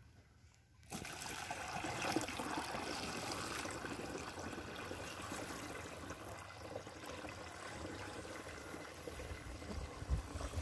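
Water pouring from a cut-open plastic bottle through the strainer into a 14-litre plastic backpack sprayer tank, a steady splashing stream that starts about a second in: the tank being filled to mix the spray.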